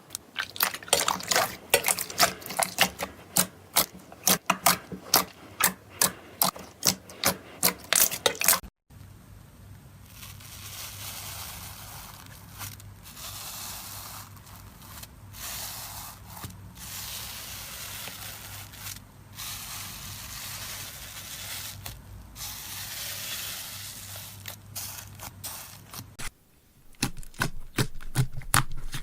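Slime being played with by hand: first a quick run of sharp wet clicks and pops, about two to three a second. Then, after an abrupt change, a softer rough hiss with short breaks, and more pops near the end.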